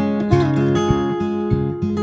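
Background music: strummed and plucked acoustic guitar playing a steady chordal pattern.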